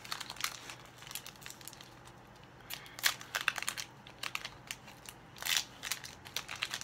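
Foil wrapper of a Pokémon booster pack crinkling and crackling in the hands as it is handled and opened, in irregular bursts, loudest about three seconds in and again about five and a half seconds in.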